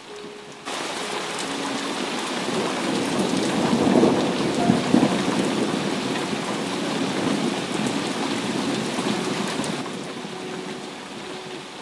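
Heavy rain pouring down, cutting in abruptly near the start, with a rumble of thunder that swells to its loudest around four to five seconds in and then fades.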